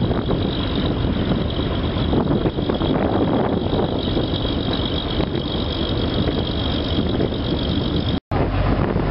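The MV Wairua riverboat's engine running steadily under way. The sound drops out for an instant near the end.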